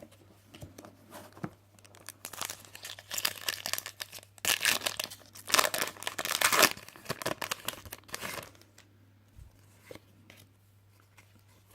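Foil Pokémon card booster pack wrapper being torn open and crinkled. The tearing and crinkling comes in a run of bursts from about two seconds in, is loudest in the middle and dies away about three seconds before the end.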